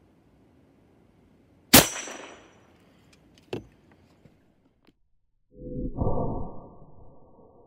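Compressed-air gun firing a gumball into an empty spray-paint can: one loud, sharp crack with a ringing tail about two seconds in, then a smaller knock a couple of seconds later. After that comes a deep, drawn-out rumble with a low steady hum that fades near the end.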